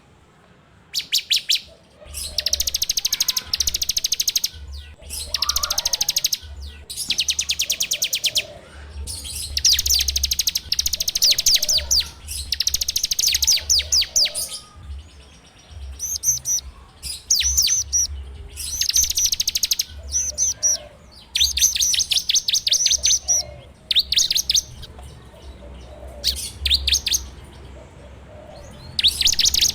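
Ciblek (bar-winged prinia) singing its full 'ngebren' song: a run of rapid buzzing trills, each a second or two of fast-repeated high notes, broken by short pauses.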